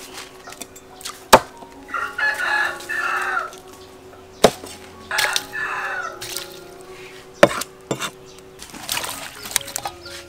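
A rooster crows twice, about two and five seconds in, each crow lasting a second or so. Three sharp, loud knocks of a cleaver chopping down onto a wooden block fall between and after the crows.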